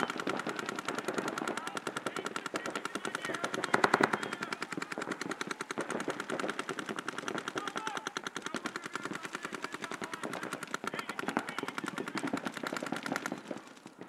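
Paintball markers firing rapid, continuous strings of shots, about a dozen a second, with a louder crack about four seconds in and a brief lull near the end before the firing picks up again.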